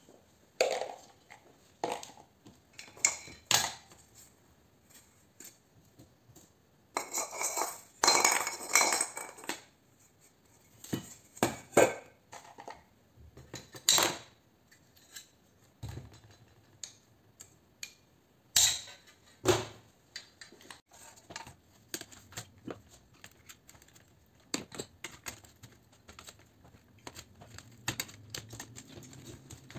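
Metal clinks, knocks and clatter as a recessed light fitting's aluminium reflector, trim ring and parts are handled and set down on a workbench during dismantling. There is a busy stretch of rattling about seven to nine seconds in, and sharp single knocks near fourteen and nineteen seconds.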